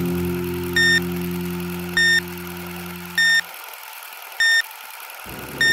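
Short electronic beeps, all at the same pitch, sounding five times about 1.2 seconds apart as a countdown-style sound effect. Under them a steady low hum fades and stops about halfway through.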